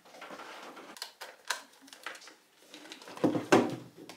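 Light clicking and tapping on a laptop keyboard, then a few louder handling knocks about three seconds in.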